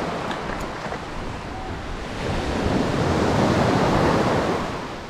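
Waves washing onto the beach: a wave swells up about two seconds in and fades away near the end.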